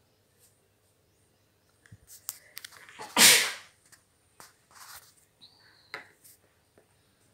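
A single loud, short burst of breathy noise about three seconds in, with scattered faint clicks before and after it.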